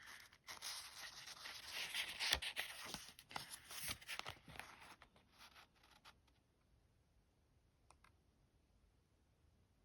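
Rustling and scraping of paper and card being handled, with small clicks, from an oracle deck's guidebook and cards. It fades out about six seconds in, leaving near silence broken by a faint click near eight seconds.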